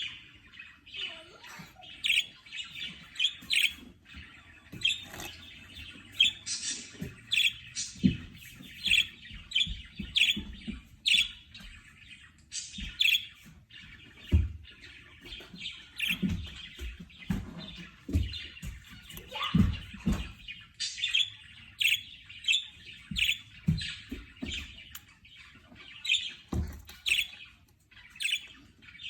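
Budgerigar chattering and warbling in a steady stream of short chirps and squawks. Low thumps and taps are heard now and then, the strongest at about 8, 14, 19 and 26 seconds in.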